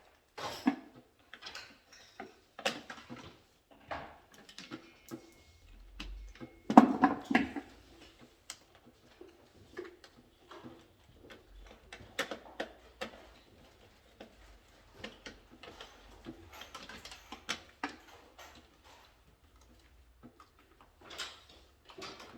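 Irregular small clicks, taps and knocks of hand work on control-panel wiring: tools, wires and terminal parts being handled, with one louder thump about seven seconds in.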